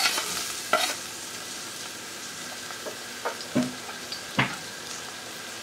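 Diced onions sizzling as they start to fry in hot olive oil in a stainless steel pot, a steady hissing. A few short knocks and scrapes come over it, the loudest near the start as the onion is pushed off a wooden chopping board into the pot.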